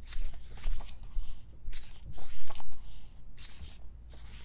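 Paper rustling as the pages of a K-pop album photobook are turned and handled, in short irregular rustles with the loudest about two seconds in.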